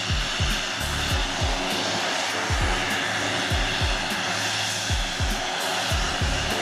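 Jetstream 41 turboprop engines running on the ground with a steady whooshing whine. Under it runs background music with a regular beat of about two thumps a second.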